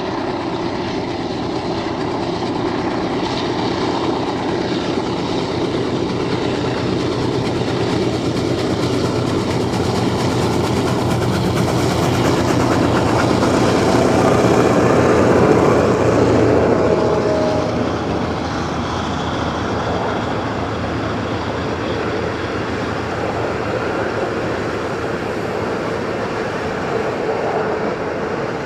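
A train passing on the rails, with rolling wheels and carriages clacking along. It builds to a peak about halfway through, then eases off.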